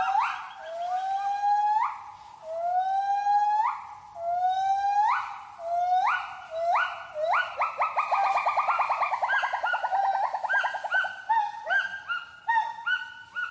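Gibbon great call: rising whooping notes, about one every second and a half, that speed up into a fast quavering trill about seven seconds in, then break into quicker, shorter hoots.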